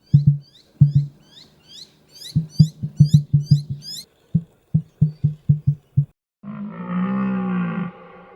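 Animal calls: a run of quick, high, downward-sweeping chirps over irregular low thuds for about four seconds, the thuds carrying on alone, then a long low drawn-out call starting near the end.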